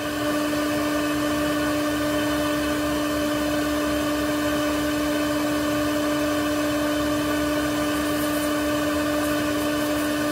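Shop vac running steadily with a constant whine, its hose stuck in the car's tailpipe to draw negative pressure through the exhaust system.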